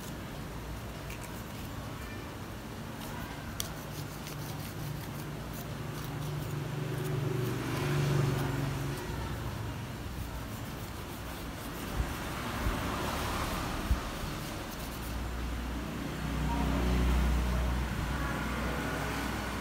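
Low rumble of passing road traffic in the background, swelling twice, with a few light clicks near the middle.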